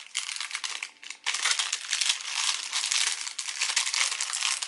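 Crinkling and rustling of a sealed card envelope's wrapping being handled and pulled at by hand to get it open. It pauses briefly about a second in, then crinkles on steadily.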